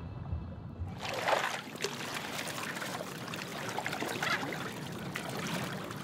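A low musical drone, cut off about a second in by water splashing, lapping and trickling around a scuba diver afloat at the surface.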